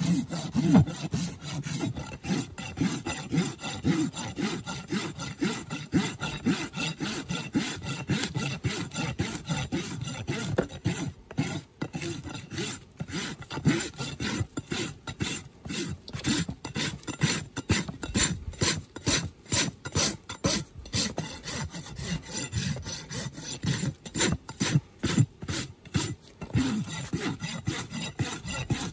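Farrier's rasp filing a horse's hoof wall in quick, repeated strokes while the hoof is being trimmed.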